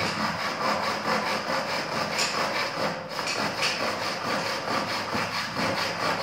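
Handsaw cutting through a wooden board with repeated back-and-forth strokes, the teeth rasping through the wood at an even pace.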